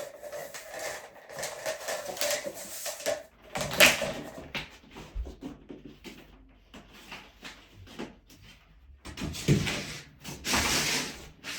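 Irregular rubbing and scraping with scattered clicks, a sharp knock about four seconds in and a longer scrape near the end: hands-on handling work on the floor.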